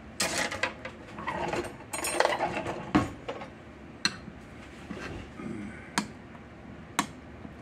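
Metal spoon stirring mashed pinto beans and a raw egg in a glass bowl: wet scraping and clinking against the glass for about three seconds, then a few single sharp clinks of the spoon on the bowl.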